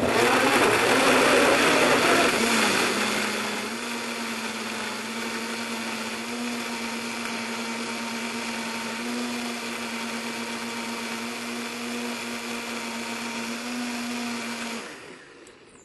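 Countertop blender puréeing a raw vegetable soup of carrots, tomatoes and avocado. It is loudest for the first two or three seconds, then runs steadily and winds down near the end.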